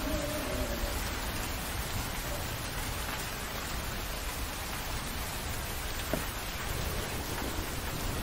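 Steady, even hiss with no clear rhythm, with a single sharp click about six seconds in.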